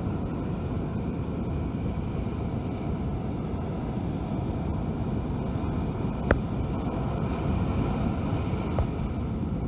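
Surf breaking and washing up the beach, with wind buffeting the microphone in a steady low rumble. A single sharp click about six seconds in, and a fainter one near the end.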